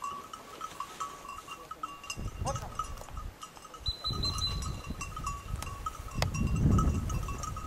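Small bell on a hunting dog's collar ringing irregularly as the dog moves, with low rustling noise in stretches from about two seconds in, loudest near the end.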